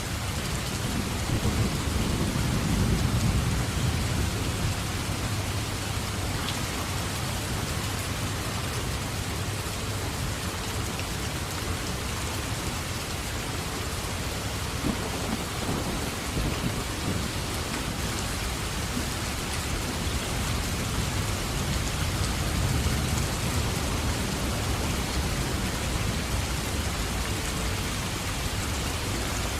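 Steady rain falling, with low rolling rumbles of thunder: one swells up a second or two in and fades, and another builds in the second half.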